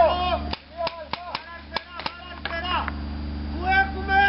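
Paintball markers firing, a string of sharp pops at uneven intervals, with players shouting near the start and again near the end.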